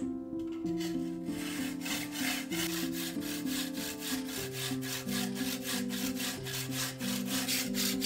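Hacksaw cutting through a tube clamped in a bench vice: steady back-and-forth strokes, several a second, beginning about half a second in, over background music.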